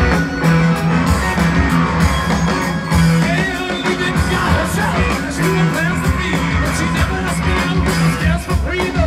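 Live rock band playing loud, with a singer and electric guitar over a heavy bass beat, heard from the audience.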